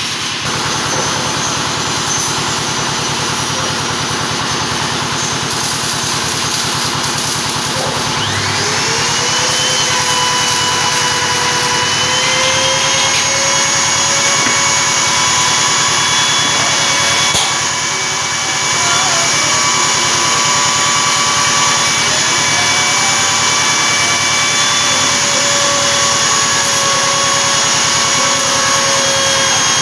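Router spindle of a CNC router running with a continuous whine that rises in pitch about eight seconds in and then holds steady, as a 6 mm bit engraves and cuts 3 mm acrylic.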